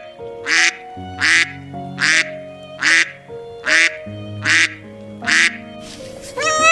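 A short, raspy animal call repeated seven times at an even pace, a little faster than once a second, over background music. A longer, clearer pitched call begins near the end.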